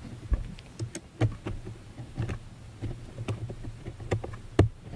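Plastic K'nex pieces being handled and fitted together: irregular small clicks and knocks, the sharpest one near the end, over a low steady hum.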